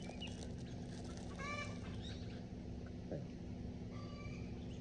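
Chickens making several short calls over a steady low hum.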